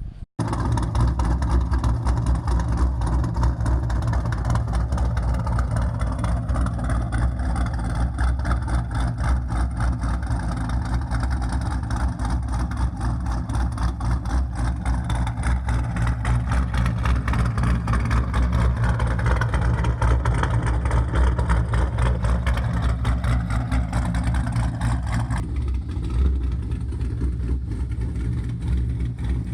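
A car's engine and exhaust running with a steady low rumble and fast pulsing. The engine note shifts up and down in the second half. The higher part of the sound thins out about 25 seconds in.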